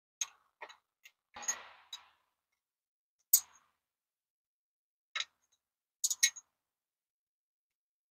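Metal hand wrench clicking and tapping against fasteners on a small-block Chevy V8 as nuts are worked loose: a handful of sharp, separate clicks, with a short scraping rattle about a second and a half in. The loudest click comes a little past three seconds.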